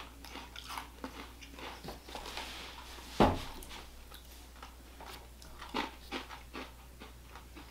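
Crunching and chewing of thin, crisp Pretz breadsticks: irregular small crackles and crunches, with one louder thump about three seconds in.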